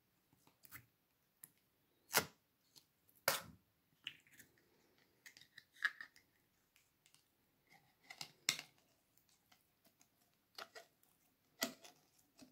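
A thin clear plastic slime container being squeezed and handled while blue slime is worked out of it: a handful of sharp plastic clicks among softer crinkles and sticky crackles.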